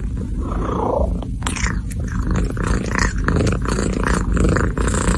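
A cat purring loudly, a steady low rumble with short crackly rustles over it.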